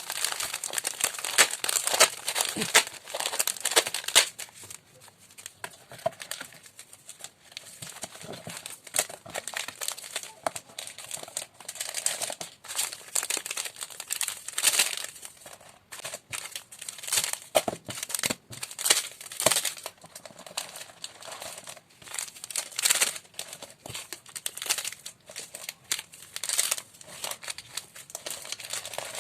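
Thin plastic packaging crinkling and rustling irregularly as it is handled and opened.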